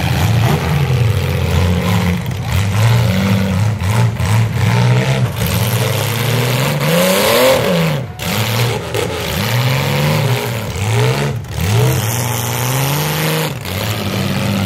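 Engines of several compact demolition-derby cars revving up and down, their notes overlapping and rising and falling again and again as the cars push against one another in the mud.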